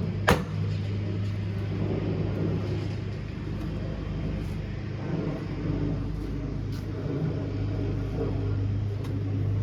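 A steady low mechanical hum, with one sharp knock a moment after the start.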